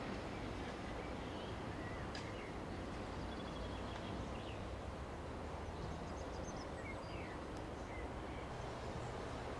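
Steady background rumble and hiss, with a few faint short bird chirps scattered through it.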